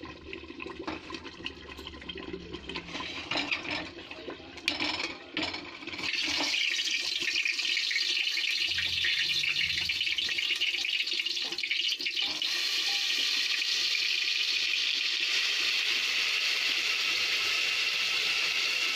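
Hot cooking oil sizzling in an aluminium pressure cooker: a few clicks and knocks for the first six seconds or so, then a steady, louder hiss.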